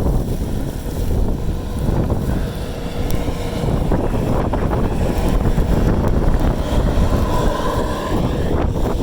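Snowstorm wind buffeting the microphone, a loud, steady low rumble that rises and falls slightly, with faint tones showing briefly twice.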